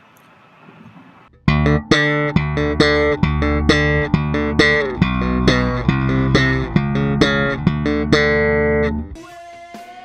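Electric bass (Fender Jazz Bass) playing a slap phrase through the Boss GT-1B's 'Boss' compressor setting, with many sharp, punchy note attacks. The phrase starts about a second and a half in and stops about nine seconds in.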